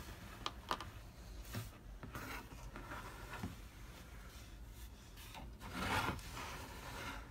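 Hands turning a built LEGO model: soft rubbing with a few light plastic clicks, and a louder scrape about six seconds in.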